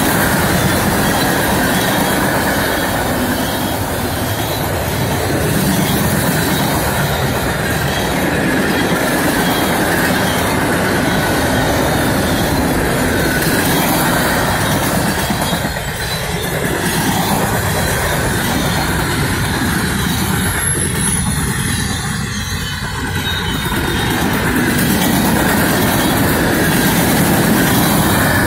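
Freight cars of a mixed manifest train rolling past close by: steel wheels on rail make a loud, continuous rumble with a steady high ring above it.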